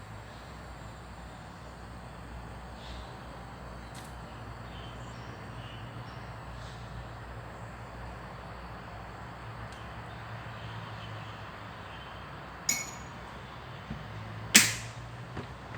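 Steady low background hum with a few faint ticks, then two sharp clinks near the end, the second the loudest, each with a brief ring: crockery knocked while the ginger and honey drink is being made.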